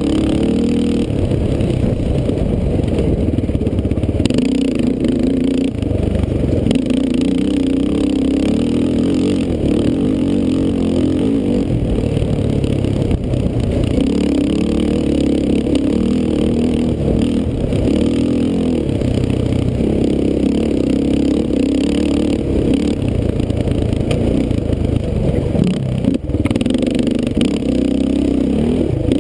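Sport ATV's engine running hard on a dirt trail, its pitch climbing and dropping again and again as the rider works the throttle and shifts gears.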